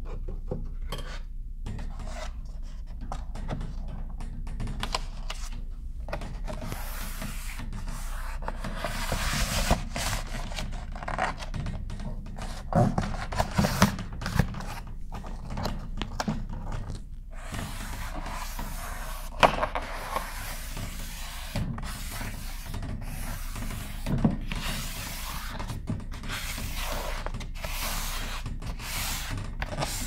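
Hands rubbing and pressing over a wavy 3D wall panel to seat it onto contact cement, irregular scraping and brushing strokes with a few light knocks against the panel.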